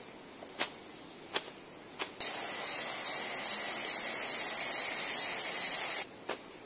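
Three sharp chops of a machete slashing through grass and weeds, then a loud, steady, high-pitched hiss that starts abruptly about two seconds in and cuts off suddenly near the end.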